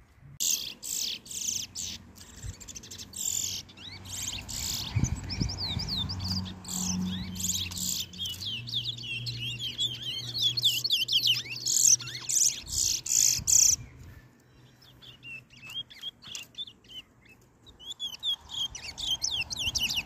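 Caged towa-towa (chestnut-bellied seed finches) singing in a contest: fast high twittering phrases of quick rising and falling notes. The song stops about fourteen seconds in and starts again near the end.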